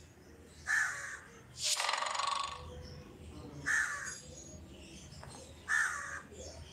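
A bird calling outdoors: three short, harsh calls about every two to three seconds. A longer rasping call about a second after the first is the loudest sound.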